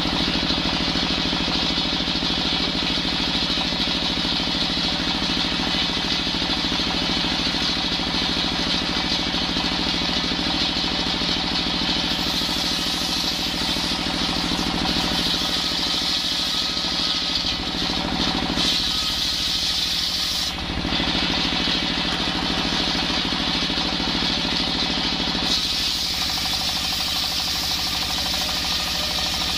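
Stationary single-cylinder diesel engine running steadily, driving a circular saw blade that rips lengthwise through coconut-wood beams, a continuous high cutting hiss over the engine's even beat. The sound dips briefly about twenty seconds in.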